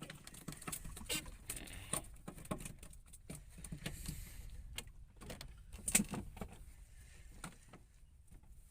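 Irregular clicks, knocks and rustling from close handling of gear, with the loudest knock about six seconds in.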